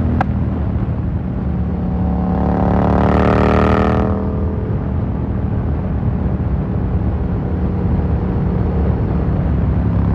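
Yamaha MT-07's 689 cc parallel-twin engine running at a steady speed through an Akrapovic carbon full exhaust, with one sharp crack just after the start. Between about two and four seconds a rising rush of noise swells and then cuts off suddenly.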